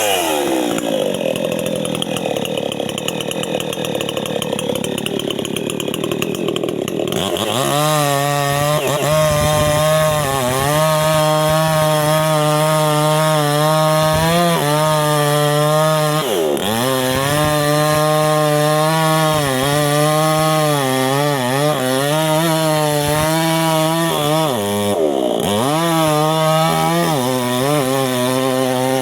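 Chainsaw engine running at high revs while cutting through a durian tree. About a quarter of the way in, the sound settles from a rougher, noisier run into a steady whine. The pitch dips briefly twice as the saw bogs in the cut.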